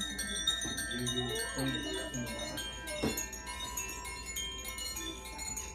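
Makino-style Advance Chimes ringing, several tuned tones overlapping and sustaining with bright high overtones. A sharp knock about three seconds in.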